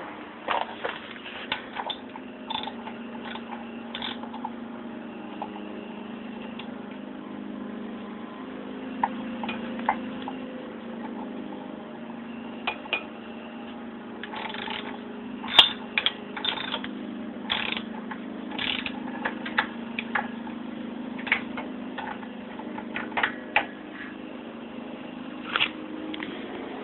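Scattered clicks and clanks of tools and metal parts being handled, over a steady low hum. The clicks come thicker from about halfway through.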